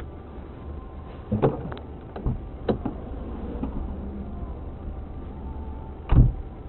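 Dashcam sound from inside a car stopped in traffic: a steady low rumble of engine and road. A few sharp knocks come about a second and a half to three seconds in, and a single loud thump about six seconds in.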